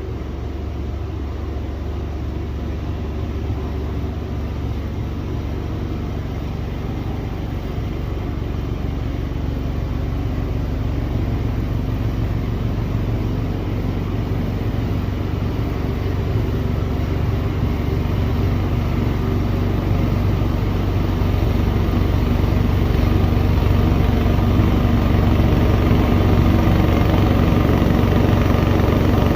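A 30-year-old Ariens snowblower's engine running steadily under load while clearing crusty, settled snow, slowly getting louder.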